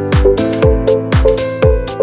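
Background electronic dance music with a steady four-on-the-floor kick drum, about two beats a second, hi-hats and held synth chords.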